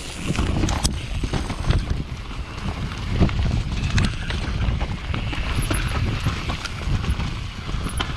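Downhill mountain bike rolling fast down a muddy dirt trail: a steady rumble of the tyres on the soft ground, with frequent irregular knocks and rattles from the bike as it goes over bumps.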